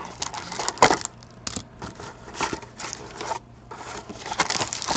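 Hands rummaging in a cardboard trading-card box, scraping cardboard and rustling foil card packs in short irregular bursts, with one sharp tap a little under a second in.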